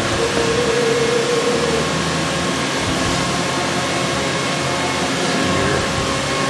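Steady whirring hum of workshop machinery, with a few faint steady tones running through it.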